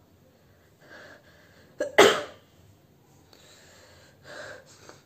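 A person sneezes once, loudly, about two seconds in, after a short intake of breath. Quieter breathing sounds follow.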